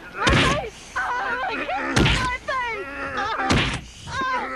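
Blows landing in a scuffle: three heavy thuds about a second and a half apart, with voices groaning and yelling between them.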